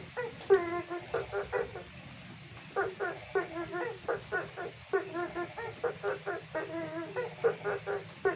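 Frogs calling at night: rapid series of loud, nasal croaks, several a second, in bouts broken by a short pause about two seconds in.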